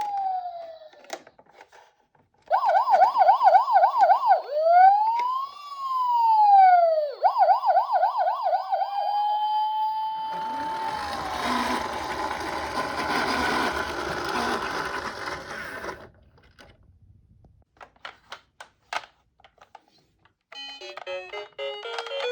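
Police car siren: a fast warbling yelp, one slow wail rising and falling, then the fast yelp again, settling into a steady tone that fades out about ten seconds in. Several seconds of rushing noise with a low rumble follow, then a few clicks, and a short chiming music jingle starts near the end.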